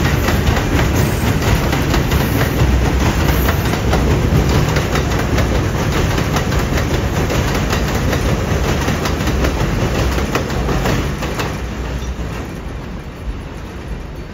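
R142A subway train rolling past on elevated track, its wheels clacking over the rail joints with a steady rumble. The noise fades over the last few seconds as the rear car passes and the train pulls away.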